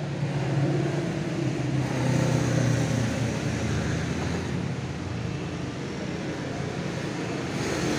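A low, steady mechanical hum from a running motor, a little louder for the first few seconds.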